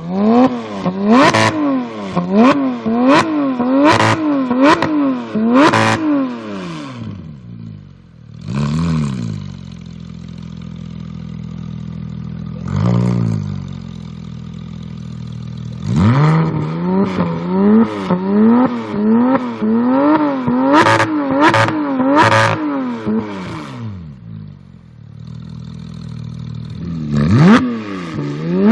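Porsche 991 GT3 flat-six through an iPE Innotech titanium exhaust being revved in quick repeated blips, each rising and falling about once a second. Between the runs of blips it drops back to a steady idle, with single blips about a third and nearly half of the way through.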